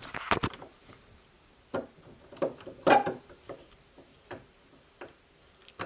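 Irregular knocks and clinks of a metal oil pump housing with its toothed pulley being handled and set into a bench vise. A cluster of clicks comes at the start, then single knocks every half second to a second. The loudest knock, about three seconds in, rings briefly.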